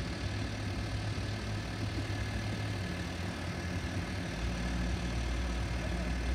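A vehicle engine idling with a low, steady hum that shifts in pitch about three seconds in and again a little over four seconds in.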